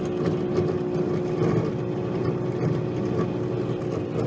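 Microwave oven running, its cooling fan making an awful rough, uneven noise over a steady hum; the fan is bad, which the owner puts down to it being full of grease.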